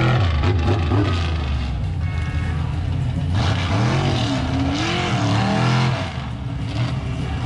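Off-road truck engine driven hard, revving up and falling back several times in a rising-and-falling pattern.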